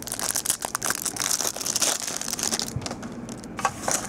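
Clear plastic wrapper on a pack of trading cards crinkling and rustling as it is pulled open, followed by a few light ticks near the end.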